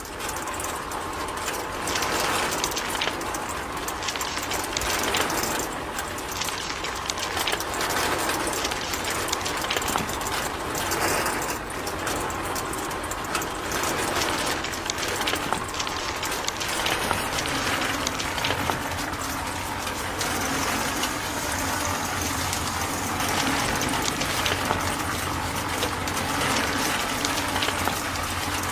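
Miniature DIY sand-sifting machine running steadily: a small electric motor drives a crank arm that shakes a mesh sieve, with sand and small pebbles rattling and pouring through.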